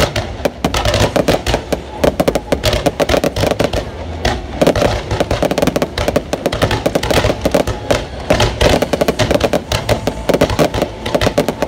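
Fireworks going off in a dense, continuous barrage of rapid crackles and bangs, many each second without a break.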